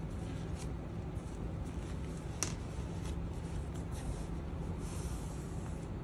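Paper pages of a handmade junk journal rustling and brushing together as the book is handled and closed, with one sharp click about two and a half seconds in, over a steady low hum.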